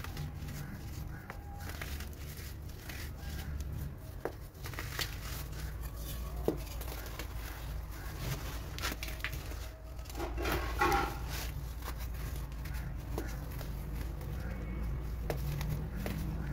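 Baking soda being squeezed and crumbled by hand: soft crunching with scattered sharp crackles, busiest about ten to eleven seconds in, over a steady low hum.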